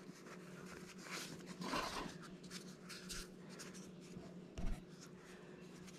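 Soft rustling and rubbing of a fabric wrapping sleeve as a small power brick is slipped out of it and handled, with one light knock about four and a half seconds in. A faint steady hum lies underneath.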